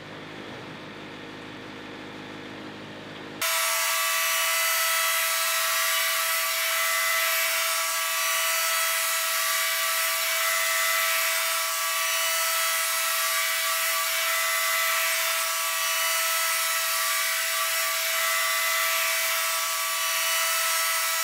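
Wood-Mizer band sawmill's blade cutting steadily through a squared log, a loud, even whine with a constant tone. It starts suddenly about three seconds in, after a quieter low hum, and stops just as suddenly at the end.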